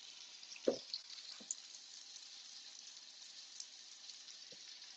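Faint sizzling of food frying in a pan, with fine crackling, and a few soft knocks, the loudest about a second in.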